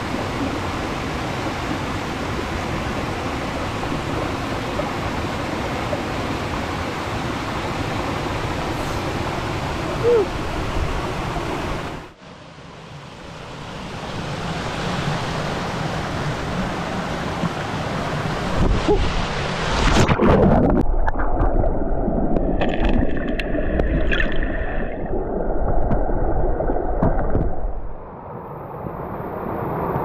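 Small mountain waterfall and cascades pouring into clear rock pools: a steady rush of falling water. After a sudden cut partway through, the sound turns muffled and deep, with water churning close against the microphone.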